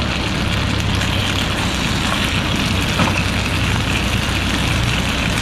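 Baked beans, sausages and a fried egg sizzling in a cast iron skillet on a camp stove: a steady hiss with a low hum underneath.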